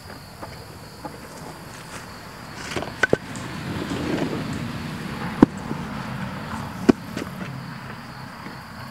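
Wooden blocks being pulled out from under a jacked-up riding mower: a scraping rumble of wood dragged over a plywood board, with sharp wooden knocks, a quick double knock about three seconds in, then single knocks near the middle and later on. Crickets chirp steadily in the background.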